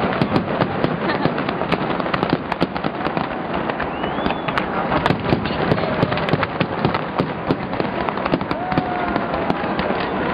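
Large fireworks display: a dense, continuous crackle of many shells bursting at once, with sharp cracks and pops coming irregularly over a steady wash of noise.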